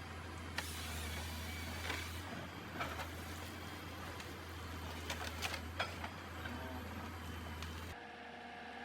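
Heavy machinery working: a steady low hum under a hiss, with scattered sharp clicks and knocks, a cluster of them about five to six seconds in. The sound changes abruptly near the end.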